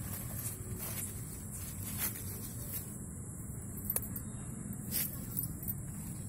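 Cucumber vine leaves and grass rustling as a hand pushes through them, over a steady low rumble, with a few short sharp clicks or snaps.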